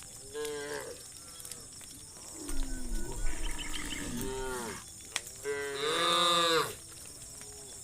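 Cattle mooing: three calls, a short one just after the start, a longer one from about two and a half seconds in, and the loudest at about six seconds in.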